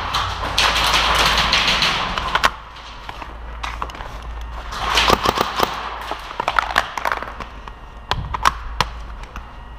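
Rustling of an airsoft player's gear and clothing as they move, mixed with scattered sharp clicks and taps, thickest from about five seconds in.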